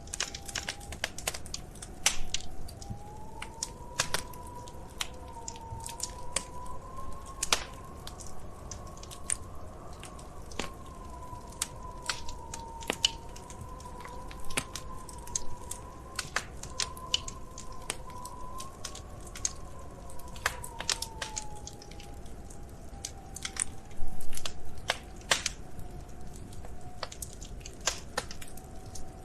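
Wood fire crackling and popping in a fireplace over a low rumble, with a few louder pops about two seconds in and a louder burst of crackling near the end. Behind it, a faint whistling tone slowly rises and falls.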